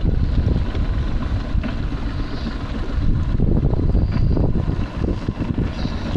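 Wind buffeting the microphone: a steady, loud, irregular low rumble.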